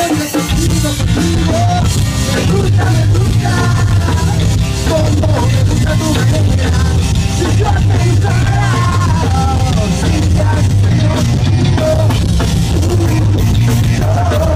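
Live rock band playing loudly: electric guitars, bass and drum kit with a melody line on top, a brief dip in level right at the start.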